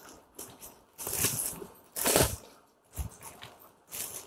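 Clear plastic wrapping crinkling as a hand handles a packed saree, in a few rustling bursts, the loudest about one and two seconds in.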